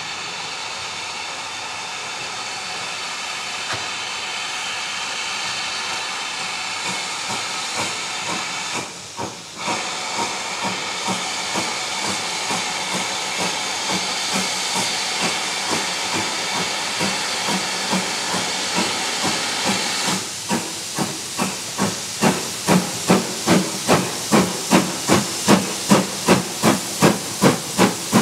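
GWR Manor class 4-6-0 steam locomotive 7820 Dinmore Manor approaching with a train. A steady hiss of steam runs for the first twenty seconds, broken briefly about nine seconds in, with its exhaust beats faint beneath it. From about twenty seconds in the exhaust beats come loud and regular, roughly two to three a second, as it draws near.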